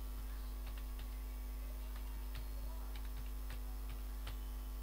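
Faint, irregular clicks of computer keys typing a string of digits, over a steady low electrical hum.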